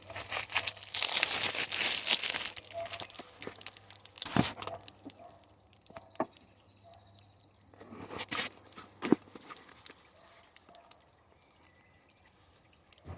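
A cardboard parcel being cut and torn open: a dense tearing and crinkling of tape and cardboard for the first few seconds, then scattered knocks and rustles, with another short tearing burst about eight seconds in.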